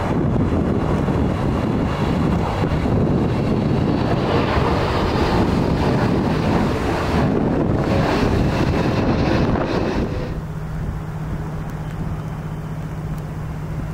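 Boeing 777's twin jet engines on final approach passing close: a loud, steady rushing noise with a faint high whine. About ten seconds in it cuts to a quieter, steady low engine hum from a second twin-jet airliner on the runway.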